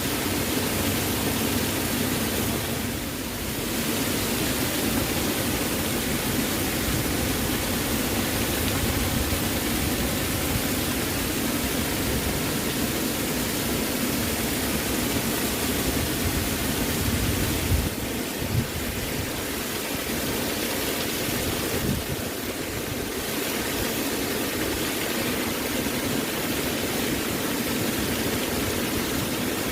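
Waterfall rushing: a steady, dense roar of falling water with no distinct splashes.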